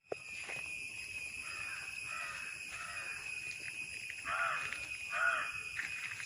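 Steady high-pitched insect drone with about five short, harsh bird calls over it, the last two the loudest.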